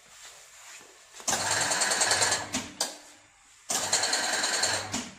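Powder auger filling machine's auger motor running in two short bursts of about a second and a half each, a rapid, even mechanical buzz that starts and stops sharply.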